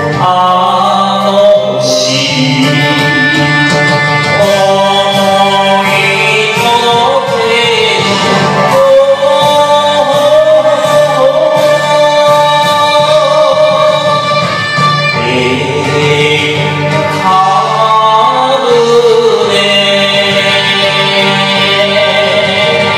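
Enka song: a voice singing the melody over a karaoke backing track, with the band playing continuously.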